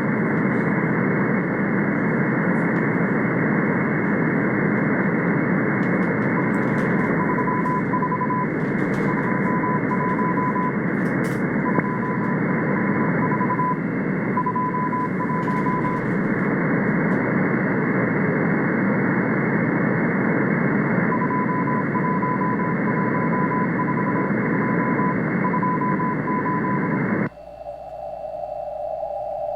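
Shortwave radio static with the Morse code of the M12 Russian number station keyed in short groups as a faint beeping tone through the hiss. Near the end the receiver is switched from USB to CW mode: the broad hiss cuts off abruptly, leaving a thin, narrow-filtered tone.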